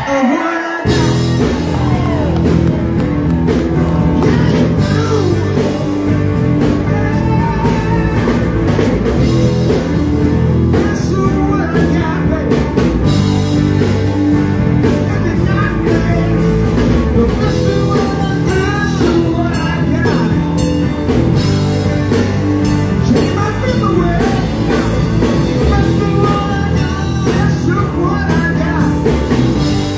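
Live rock band playing loudly: acoustic guitar strummed over drum kit and bass, with a man singing at times.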